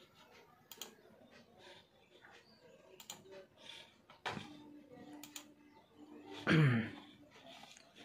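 Scattered, irregular clicks from a Portronics Hydra 10 keyboard and a Portronics wireless mouse in use. About six and a half seconds in comes the loudest sound, a brief low voice sound falling in pitch.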